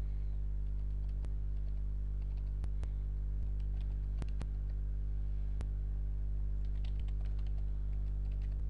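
Computer keyboard typing: scattered, light keystroke clicks, a few closer together near the end, over a steady low electrical hum.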